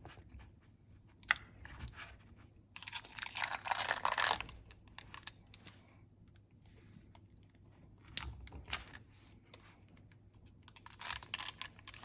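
A knife cutting a fridge-set slab of homemade chocolate with nuts: scattered clicks and taps, a longer crunchy scraping stretch about three seconds in, and a cluster of cuts near the end.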